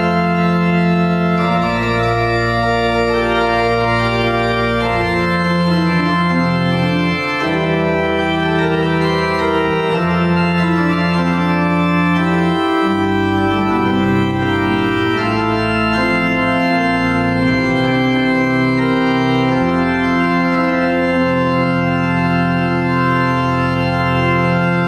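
Pipe organ playing a slow piece of sustained chords over low bass notes, the harmony changing every second or two.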